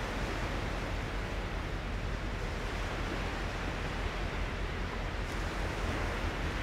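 Steady, even rushing noise, like surf or wind, with no tone or rhythm in it.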